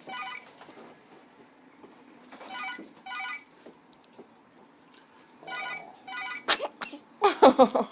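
A telephone ringing in repeated double rings, a pair about every three seconds. Near the end comes a sudden loud sneeze, the loudest sound here.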